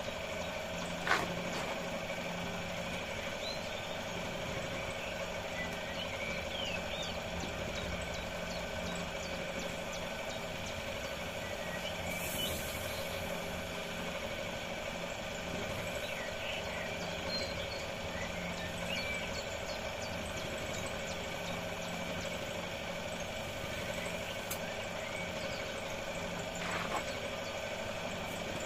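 Air compressor running steadily while pumping up the pit bike's tyres, with a sharp click about a second in.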